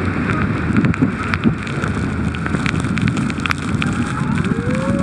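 Steady roar of the Iguazú Falls and the churning river close under the cascades, with spray spattering onto the microphone in many small sharp ticks. Near the end, a person's short rising shout.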